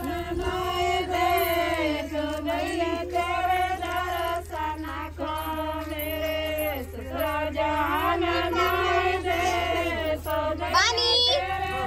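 A group of women singing a song together in unison, holding long notes that rise and fall.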